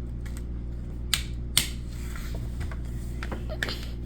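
Sharp plastic clicks and taps of board-game pawns being moved on a Sorry! board, two louder ones close together about a second in and a few softer ones later, over a steady low hum.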